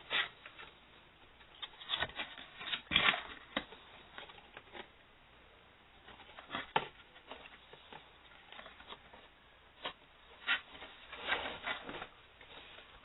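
Plastic emergency lamp being handled: irregular light taps, clicks and rubbing, coming in clusters.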